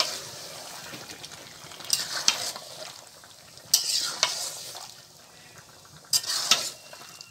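Beef curry being stirred with a metal spatula in a large metal pot: the spatula scrapes along the pot in bursts every second or two, over the steady sizzle of the frying meat.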